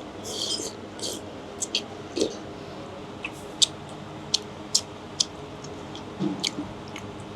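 A person eating a bowl of noodles: a brief hissing slurp near the start, then scattered sharp clicks and smacks, about eight over the next few seconds, over a steady background hum.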